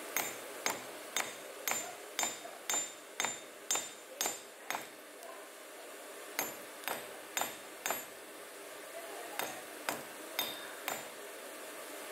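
Hand hammer striking a hot metal rod on a makeshift anvil block, about two blows a second, each with a short high metallic ring. A run of about ten blows, then after a pause two shorter runs of four.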